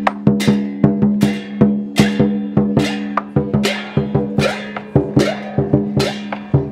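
Lion dance percussion: a large Chinese drum beaten in a brisk, steady rhythm with clashing cymbals, several strokes a second, the cymbals ringing on between hits.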